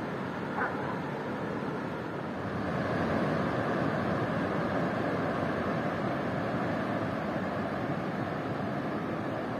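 Ocean surf: a steady rushing wash of breaking waves, growing a little louder about two and a half seconds in.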